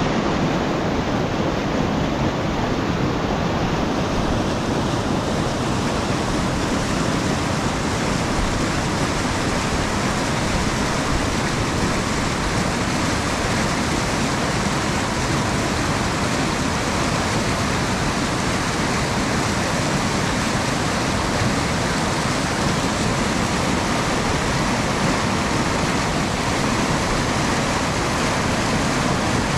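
A fast mountain river rushing over boulders and through whitewater rapids: a steady, loud rush of water with no let-up.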